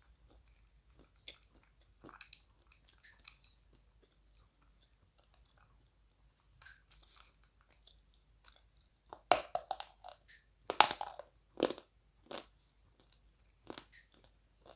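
A person biting and chewing lumps of dry edible clay, close to the microphone: soft clicks and small crunches throughout, and a run of four loud, sharp crunches about two thirds of the way in, with a couple more near the end.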